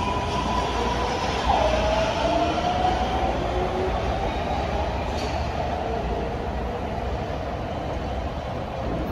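A MARTA rapid-transit train accelerating out of the station and drawing away: a steady rumble of wheels on rail, with an electric whine that shifts in pitch about a second and a half in, climbs briefly, then fades as the train recedes.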